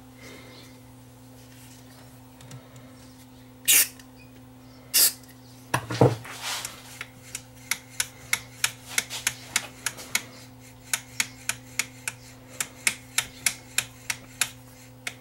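Two short hisses of DeoxIT contact-cleaner spray squirted into an amplifier's volume control. Then a run of sharp clicks, about three a second, as the control is turned back and forth to work the cleaner through the pot.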